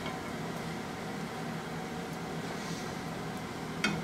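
Steady mechanical hum and hiss of commercial kitchen equipment around a gas range with a lit burner, with one light clink near the end.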